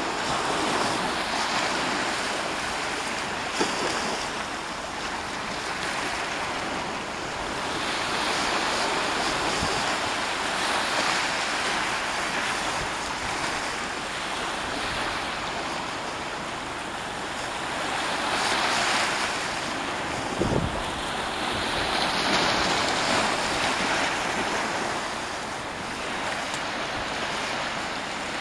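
Small sea waves washing in over shallow water and breaking on the beach, the wash swelling and fading every few seconds, with wind on the microphone and a couple of brief bumps.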